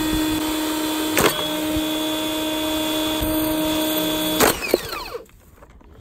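Campbell & Hausfeld pressure washer running flat out during a run to destruction, with a sharp bang about a second in and another near the end. After the second bang it winds down, its pitch falling, and it stops about five seconds in: the machine failing.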